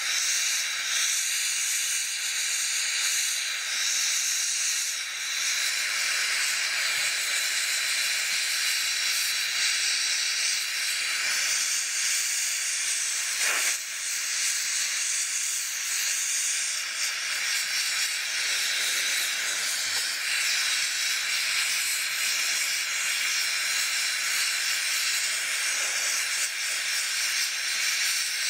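Oxy-MAPP gas torch flame hissing steadily while it melts scrap sterling silver in a crucible, with one brief break about halfway through.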